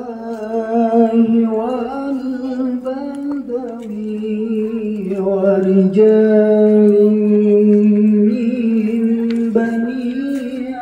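A voice singing a slow, chant-like melody in long held notes that waver slightly and step to a new pitch every second or two.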